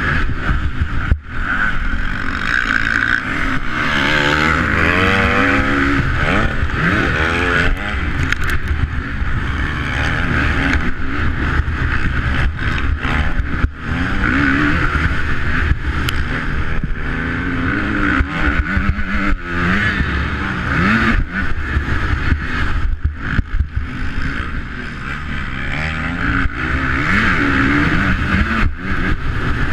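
Motocross bike engine revving up and falling back again and again as the rider accelerates and shifts around the dirt track, heard close up from a camera mounted on the bike.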